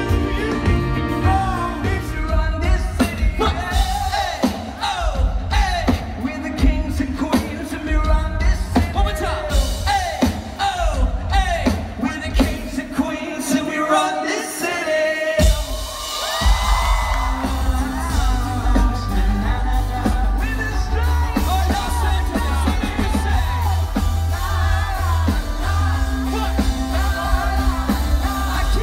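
Live band playing amplified over a stage PA, heard from within an open-air crowd: a lead singer singing over bass and drums. About halfway through the bass drops out briefly, then the full band comes back in.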